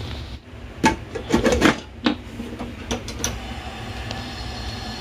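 A metal pot knocking and scraping against a gas stove's grate as it is handled on the burner: a handful of sharp clanks about one to three and a half seconds in, over a steady low hum.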